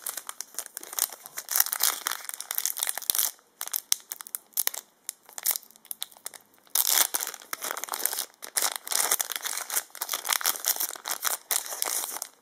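Foil Yu-Gi-Oh booster pack wrapper being torn open and crinkled by hand, in dense rustling spells with a few brief pauses.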